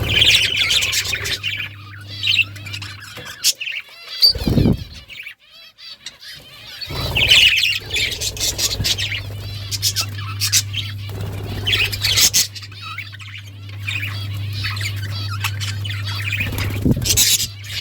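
Budgerigars chirping in bursts over a steady low hum.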